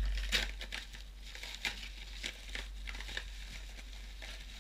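Paper mailer envelope crinkling and rustling as hands dig into it and tip it up to empty it, irregular crackles loudest in the first second and sparser after.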